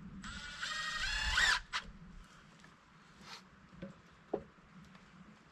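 Cordless drill driving a screw into lumber, its motor whine rising in pitch for about a second and a half before stopping. A few light knocks follow.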